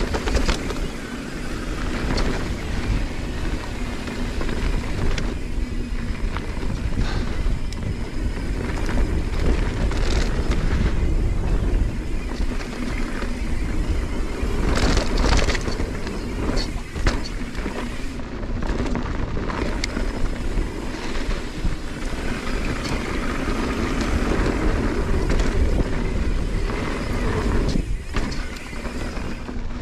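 Mountain bike rolling down a dirt trail: steady wind rush on the camera microphone over the rumble of the tyres, with frequent clicks and rattles from the bike.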